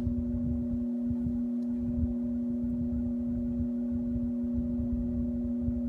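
20-inch Vernco box fan running on low, its large metal blades turning slowly with a low rumble of moving air under a steady hum made of several tones, which the owner thinks comes from the cage.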